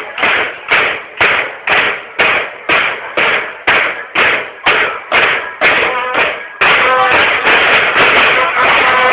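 Banda de guerra snare drums beating a steady marching cadence, about two strokes a second. About six and a half seconds in, the band breaks into a full march with rapid continuous drumming and sustained bugle notes.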